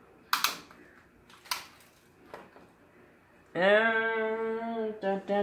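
Two brief rustles as a tape measure is laid across a plastic-covered canvas. Then a man's voice holds a steady, level-pitched 'hmm' for about a second and a half, and starts another near the end.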